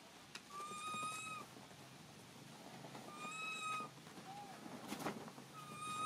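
An animal calling three times, each a drawn-out note held at one steady high pitch, about two and a half seconds apart.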